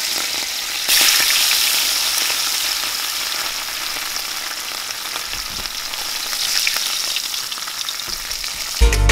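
Fish pieces frying in very hot oil in a stainless steel pan, a steady sizzle. It flares up louder about a second in as a second salted shad piece goes into the oil, then slowly settles. Music comes in right at the end.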